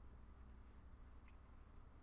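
Near silence: faint room tone, with a single faint click a little past the middle.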